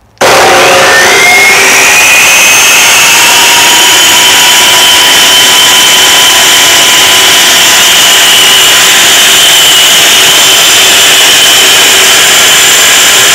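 MultiQuip MP3 14-inch masonry saw's universal electric motor switched on: it whines up to speed over about the first second and a half, then runs loud and steady at its constant 3600 rpm with the blade spinning free, not cutting.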